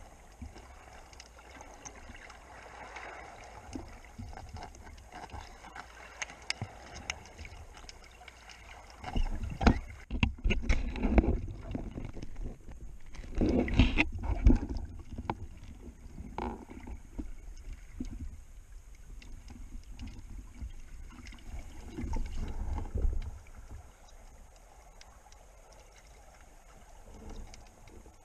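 Underwater sloshing and rumbling of shallow surf, heard through an underwater camera housing, with bubbles and small knocks. The churning grows louder for several seconds in the middle and swells briefly again later.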